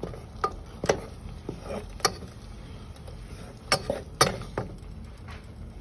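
Irregular sharp knocks and clinks of kitchen utensils against cookware and dishes, about six over a few seconds.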